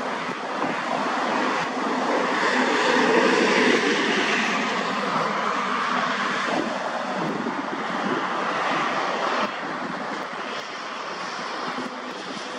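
Cessna Grand Caravan's single turboprop engine and propeller, a steady rushing drone as the plane approaches low overhead.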